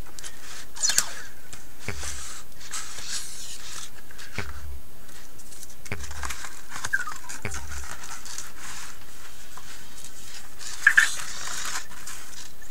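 Hands handling a padded mailer envelope and a card in a plastic holder: a few soft knocks on a wooden desk and light rustling over a steady hiss. A brief high chirp comes near the end.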